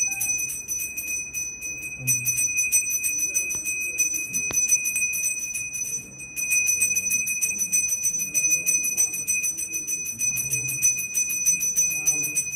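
Brass hand bell (ghanta) rung rapidly and without stopping for the arathi, a steady high ringing made of fast strokes, with a brief break a little before halfway.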